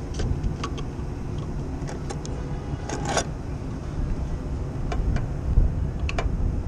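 Wind buffeting the microphone in a steady low rumble, with scattered light clicks and knocks from the metal conduit fitting being handled against the fan motor's terminal box, the loudest about three seconds in.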